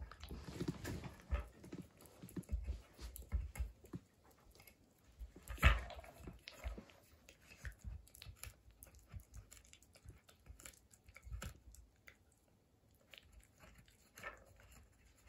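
Small Papillon–Corgi mix dog biting and pushing a wooden tiered ball-track cat toy, making irregular clicks and knocks of wood, with one much louder knock about six seconds in. The knocks thin out and grow quieter near the end.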